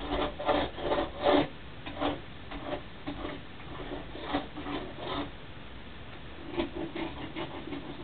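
Irregular rubbing and scraping strokes, quick and loudest in the first second and a half, then sparser, with another cluster near the end.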